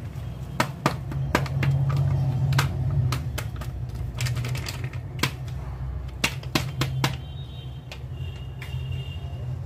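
Irregular sharp clicks and taps from a small plastic packet of ready-made pickle masala being handled and squeezed out over a steel bowl, over a steady low hum.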